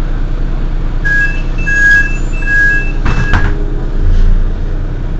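Heuliez GX 127 city bus idling at a stop while its door-closing warning beeps in a quick two-tone pattern for about two seconds. A short sharp hiss of air follows as the doors shut, about three seconds in. The engine note then rises briefly near the end.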